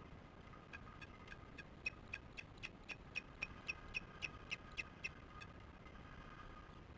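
Osprey giving its alarm call at an intruder: a run of short, sharp whistled chirps, about four a second, growing louder towards the middle and stopping about five seconds in.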